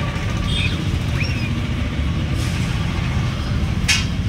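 Steady low rumble, with a few faint high chirps and a brief hiss about four seconds in.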